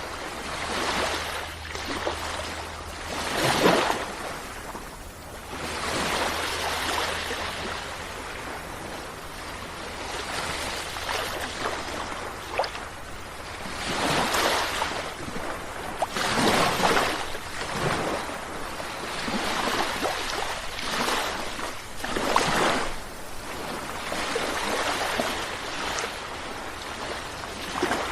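Sea waves breaking and washing up the shore, one surge after another every few seconds, the loudest about three and a half seconds in.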